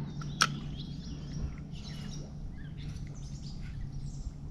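Birds chirping and calling over a steady low background rumble, with one sharp click about half a second in.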